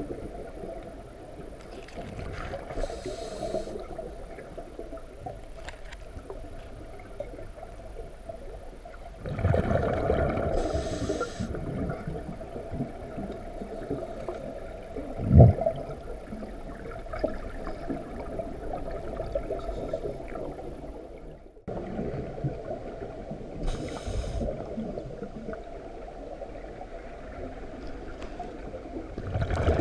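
Underwater sound heard through a camera housing: a steady low wash of water noise, with louder bursts of a scuba diver's exhaled bubbles every several seconds and one sharp knock about fifteen seconds in.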